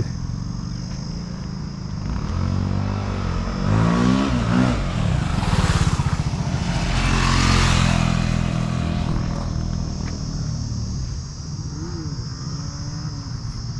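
Sport motorcycle engine revving, rising and falling in pitch, then passing close and loudest about six to eight seconds in before it drops back to a lower steady run.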